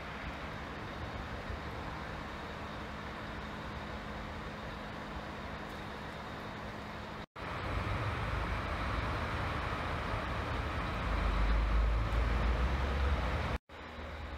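Engine of a truck-mounted hydraulic crane running steadily while it lifts a large root-balled tree. The sound cuts out abruptly twice, about halfway through and near the end. Just before the second cut the engine grows louder and deeper for a couple of seconds.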